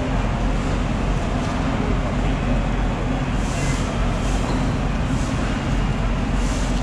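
Steady low rumble of background machinery, with a few soft hissing swishes in the second half as a long knife draws through the bluefin tuna's flesh.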